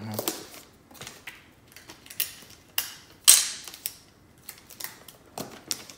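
Gift-wrapping paper being handled: scattered short crinkles and snaps, the loudest a little over three seconds in.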